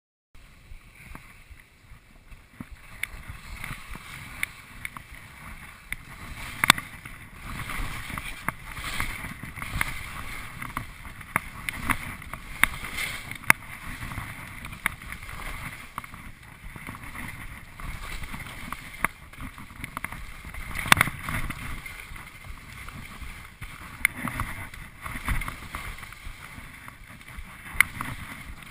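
Skis sliding and scraping over snow, with wind on the microphone, builds over the first few seconds; several sharp knocks stand out from the hiss, the loudest about two-thirds of the way through.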